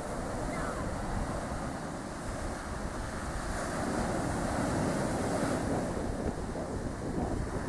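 Sea waves breaking and washing up a shingle beach, a continuous surf wash, with wind buffeting the microphone.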